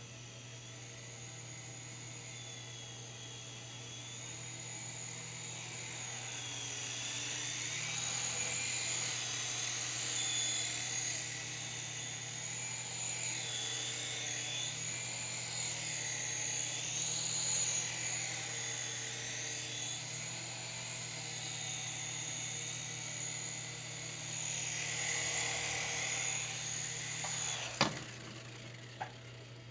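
Syma S107G mini RC helicopter's electric motors and coaxial rotors whirring in flight, a high whine that rises and falls in pitch. Near the end there is a sharp knock, then a lighter one.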